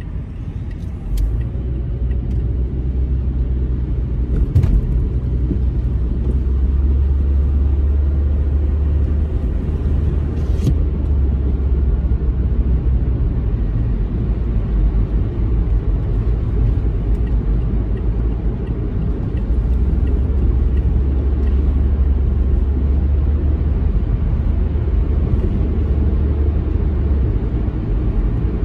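Car driving on the road, heard through a dashcam: a steady low rumble of engine and tyre noise, with a few brief clicks.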